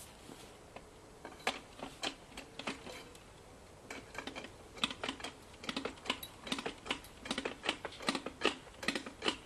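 800 kg Tirfor hand winch being worked by its lever to take up more cable, its mechanism clicking with each stroke: a few scattered clicks, then a steady run of about three clicks a second from about halfway through.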